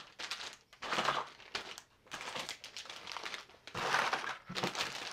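Plastic packaging of fishing lures crinkling and rustling in several irregular bursts as the bagged soft-plastic baits are picked up and stacked.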